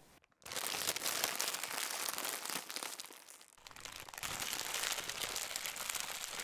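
A dense crinkling, crackling noise effect laid over an animated logo. It starts abruptly about half a second in, eases off briefly just past three seconds, then comes back.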